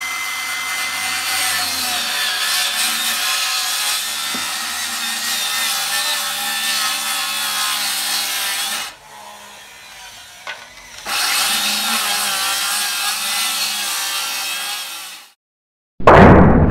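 Saw cutting steadily through wood, running for about nine seconds, pausing for two, then running again for about four more before stopping. Near the end a sudden loud whoosh starts.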